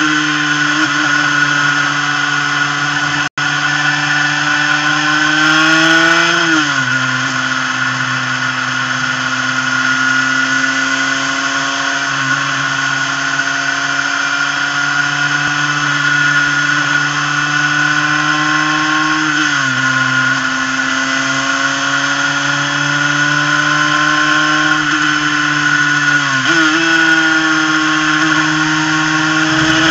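Superkart's twin-cylinder two-stroke racing engine running at high revs under way, its buzzing note climbing slowly as it pulls. The pitch drops sharply about six seconds in and again near twenty seconds, then jumps up near the end.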